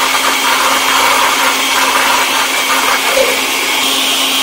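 Countertop blender running steadily, with a constant motor hum, as it purées cooked vegetables and their cooking water into a green cream soup.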